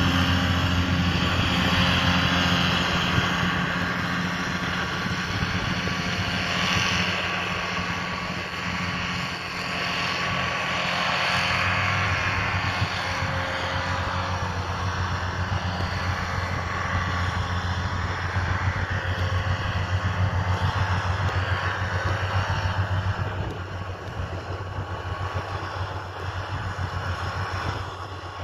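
Fendt Vario 720 tractor's six-cylinder diesel engine running steadily under load while it drives front and trailed John Deere mowers through grass. A steady engine drone with a higher hiss above it grows quieter near the end as the tractor moves away.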